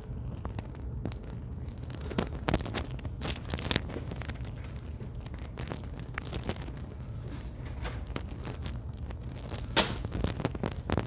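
Scattered light clicks and taps over a steady low hum, with one sharper click near the end.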